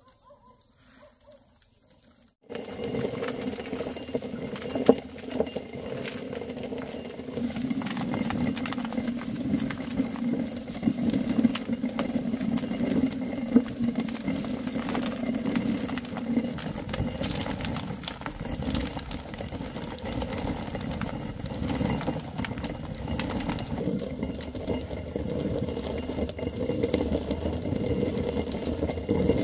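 Faint crickets, then about two and a half seconds in a loud, steady mechanical running noise starts abruptly and carries on, a low hum with many small clatters.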